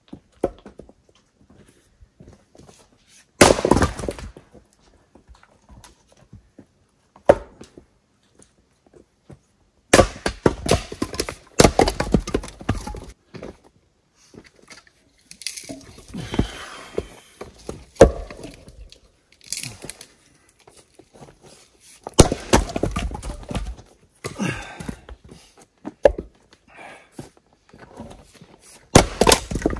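Axe splitting firewood rounds on a chopping block: about nine sharp chopping strikes at irregular intervals, several followed by a clatter of split pieces falling.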